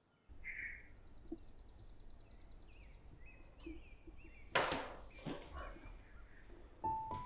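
Quiet room ambience with faint chirping from outside, a rapid high trill at first, then scattered chirps. About four and a half seconds in comes a sharp knock and short scrape, the loudest sound. Soft piano music enters near the end.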